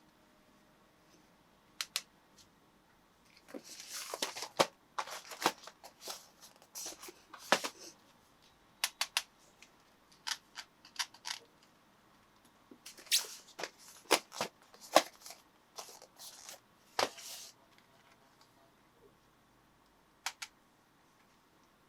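Packaging of a boxed model train being handled: sharp clicks and short rustles in two busy spells, with quiet gaps between.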